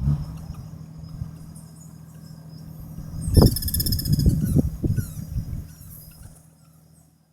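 Helmeted guineafowl calling, a loud burst of harsh, chattering calls in the middle of the clip, over a steady low hum.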